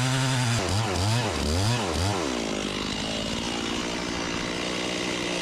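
Two-stroke chainsaw running, its engine pitch rising and falling several times during the first two seconds, then holding a steady high pitch.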